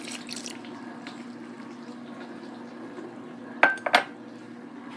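A metal fork clinks against the mixing bowl two or three times about three and a half seconds in, one clink ringing briefly, over a steady low hum.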